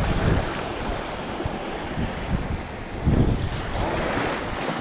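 Lake waves washing against a rocky shoreline in a steady rush, swelling a little about three seconds in, with wind buffeting the microphone.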